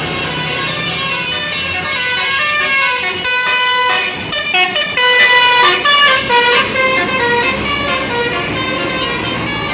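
Tour bus's Basuri telolet musical horn playing a quick tune of short stepped notes, loudest in the middle, over the rumble of the passing bus.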